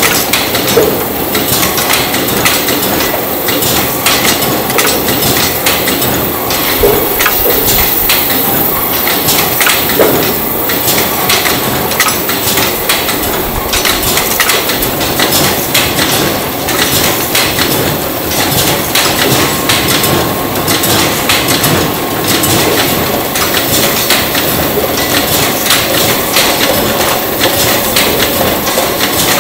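Burger-bun production line machinery, with plastic modular conveyor belts and bun-handling mechanisms, clattering steadily with many rapid clicks and knocks.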